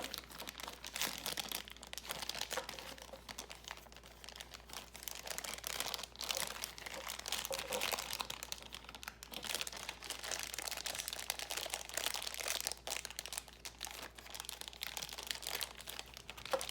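Plastic Beyblade packaging being handled and opened by hand, crinkling irregularly throughout.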